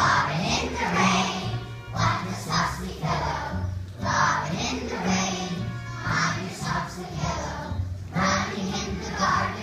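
A group of young children singing a song together in phrases, over an instrumental accompaniment with a moving bass line.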